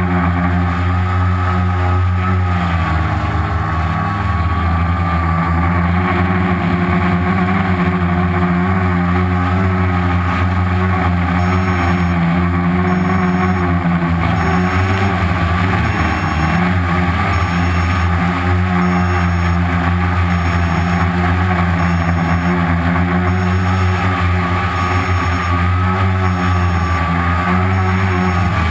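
Homemade quadcopter's four brushless outrunner motors (Turnigy 2217 1050kv) spinning 10x4.5 slow-fly propellers, a loud steady buzz heard close up from the onboard camera. The pitch wavers briefly with throttle changes a few seconds in, about midway, and near the end.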